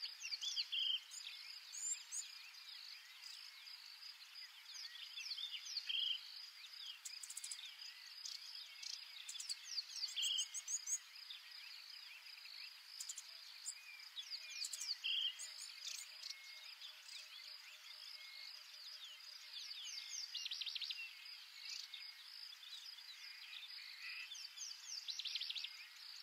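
A steady high insect chorus with many short high-pitched chirps and twitters scattered through it, coming in clusters. A brief call repeats about every four to five seconds.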